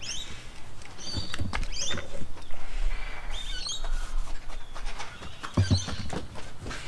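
Small birds chirping in short, high, gliding phrases, repeated several times, with a few dull low knocks from a hard plastic case being handled.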